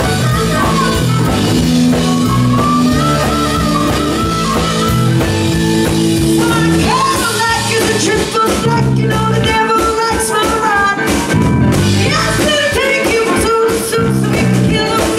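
Live blues-rock band playing: a harmonica played through a vocal microphone over electric guitar, bass and drum kit, with the drums hitting harder in the second half and a woman's voice singing near the end.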